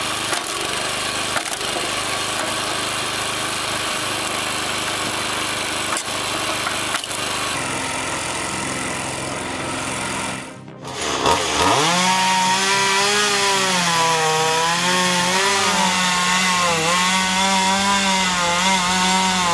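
For about ten seconds, a log splitter and its conveyor run with a steady, noisy din. After a sudden break, a petrol chainsaw runs and cuts through a log, its engine pitch wavering up and down as the cut loads it.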